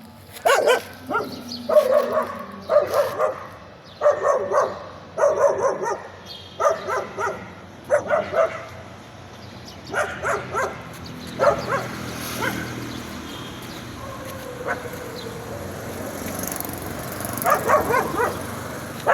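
A dog barking in repeated bouts of two or three short barks. The barking stops for several seconds partway through and comes back in a last flurry near the end.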